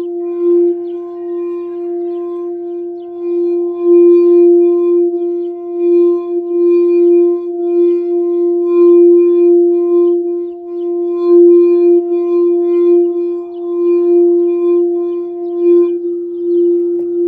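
A singing bowl sounding one sustained, steady low tone with ringing overtones. The tone swells and fades in a regular pulse, as when the rim is being circled. Near the end the higher overtones fall away and the low tone rings on.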